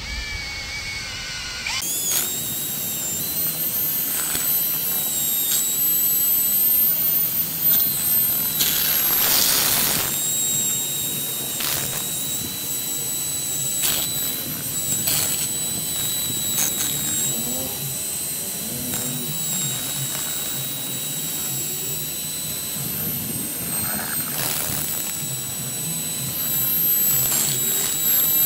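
Electric drill with a mixing paddle stirring a batch of bagged mix and water: the motor spins up about two seconds in, then runs at a steady high whine, with a few knocks.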